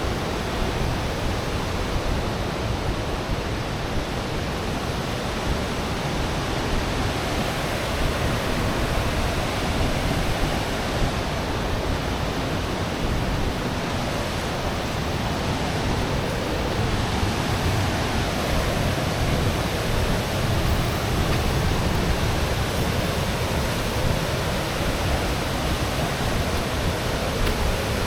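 Steady rush of a waterfall: an even roar of falling water that does not change.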